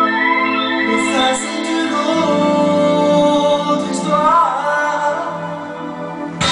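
Electronic keyboard holding sustained organ-like chords under a sung melody that glides up and down. Near the end a sudden, busier and louder passage comes in.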